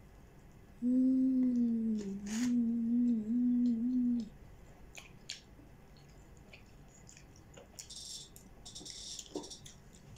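A woman humming with her mouth closed for about three seconds, the pitch dipping and then bobbing up and down a few times, mid-meal. Faint chewing clicks and mouth noises around it.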